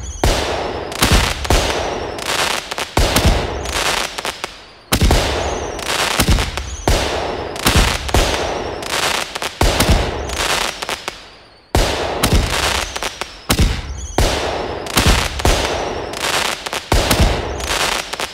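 Fireworks sound effect of repeated explosion, hiss, bop and bang: loud bangs and pops every second or two, each followed by a hiss that dies away. After some of them a thin high whistle slides down.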